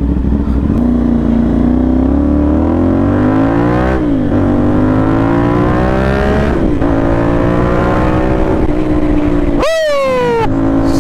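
CFMoto 450NK's parallel-twin engine through a short stainless SC Project-copy slip-on exhaust, pulling up through the gears. The note rises, drops at a gear change about four seconds in, rises again and drops at a second change, then holds steady. Near the end the revs fall sharply.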